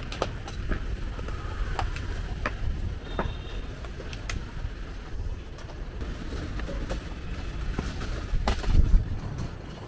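Plastic food containers and their lids clicking and clattering as they are handled, over a steady low background rumble, with a louder knock near the end.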